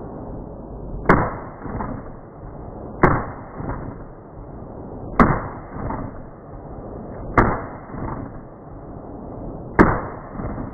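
Colt Gold Cup Trophy 1911 pistol in .45 ACP firing five slow single shots, about two seconds apart. Each shot is a sharp report followed by a fainter crack about half a second later.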